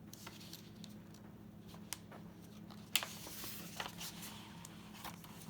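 Faint handling noises: a few small clicks and a brief rustle about three seconds in, the loudest click at its start, over a steady low electrical hum.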